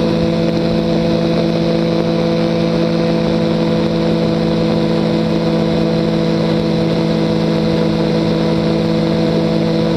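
Weight-shift microlight trike's engine and propeller running at steady cruise power in flight, a constant hum with no change in pitch.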